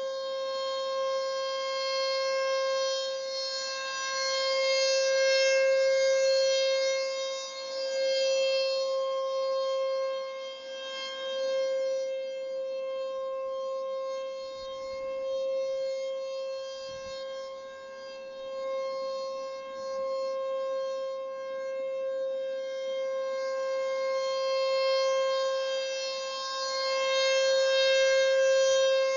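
Outdoor warning (civil defense) siren sounding a steady, unchanging tone during a test, its loudness swelling and fading every few seconds.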